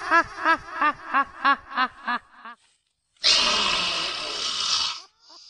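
A ghost character's drawn-out laugh, repeated 'ha' pulses about three a second, dying away about two seconds in. After a short pause comes a loud, raspy roar lasting almost two seconds.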